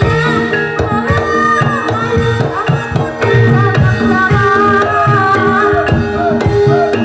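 Live Banyumasan gamelan music: kendang hand drums play a busy rhythm under ringing metallophone notes, and a female sinden sings a wavering, ornamented melody over them.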